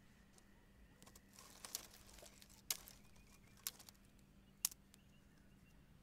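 Wood campfire crackling in a fire pit: a handful of sharp pops at irregular intervals, the loudest near three, four and five seconds in, with a brief soft hiss of burning wood about a second and a half in.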